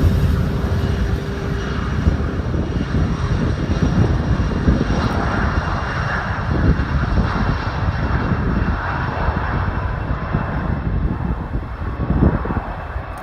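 Airliner engines running, a loud steady rumble with a rushing hiss above it.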